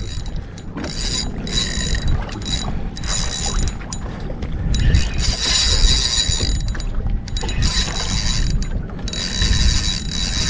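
Spinning reel being cranked to reel in a hooked fish, its gears giving a fast clicking whir in spurts of a second or two with short pauses, over a low wind rumble on the microphone.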